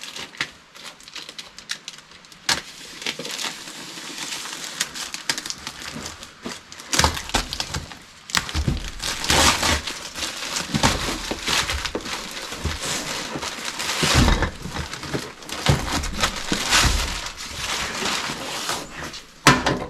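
A shipping package being opened by hand: irregular tearing, crackling and rustling of the packing, louder from about seven seconds in.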